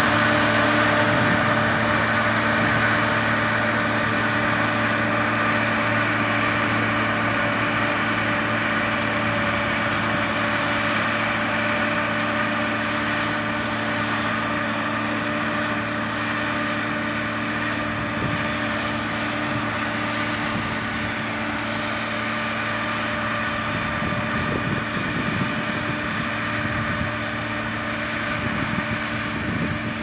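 Hidromek MG 330 motor grader's diesel engine running steadily as the machine grades soil, its sound slowly fading as it drives away.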